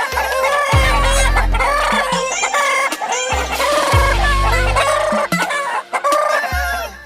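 Aseel chickens clucking and crowing over background music that has deep, sliding bass notes recurring every second or two.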